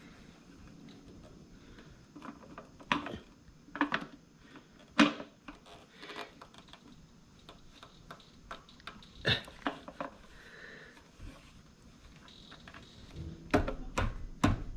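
Irregular sharp plastic clicks and knocks as a fuel pump's locking ring is turned and pressed down onto the fuel tank until it locks, coming closer together near the end.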